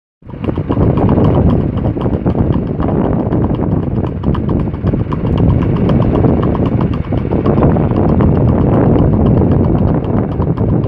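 Quick, even hoofbeats of a Mangalarga Marchador colt in the marcha picada gait on asphalt, under a loud, steady rumble of vehicle engine and road noise.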